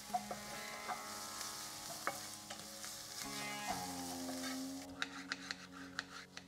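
Onions, ginger and garlic sizzling in hot oil in a pan, with soft background music holding steady notes underneath. About five seconds in the sizzle drops away and a run of sharp clicks of stirring follows.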